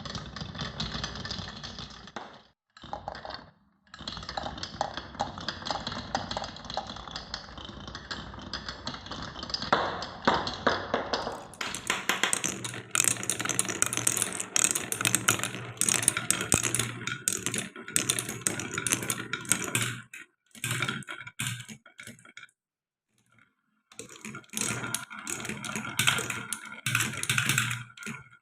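Marbles rolling and clattering down a wooden marble run: a dense run of rapid clicks and rattles, broken by a few short pauses.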